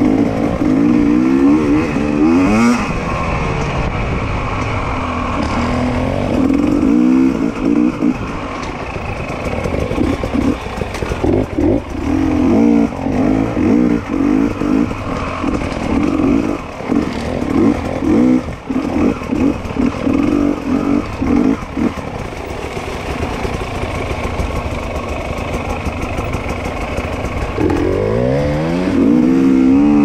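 Dirt bike engine being ridden hard along a trail, revving up and down. It climbs in pitch as it accelerates about two seconds in and again near the end, with choppy on-and-off throttle in between.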